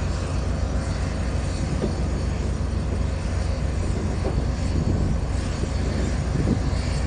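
Steady engine drone with a strong low rumble and a faint high whine, from heavy machinery and aircraft on an airfield ramp.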